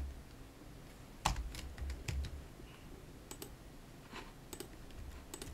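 Computer keyboard keys and mouse buttons clicking: a handful of separate, faint clicks spaced irregularly, as a value is typed and entered.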